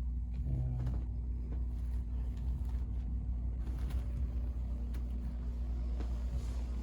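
A steady low hum with a brief low tone about half a second in and a few faint clicks.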